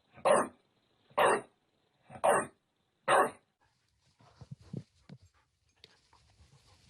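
A dog barking four times, about once a second, each bark short and sharp, followed by a few faint soft sounds.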